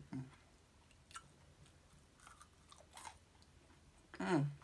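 Close-miked chewing of oven-reheated fried food, with a few faint crunches and wet mouth clicks. A short hummed voice sound comes about four seconds in.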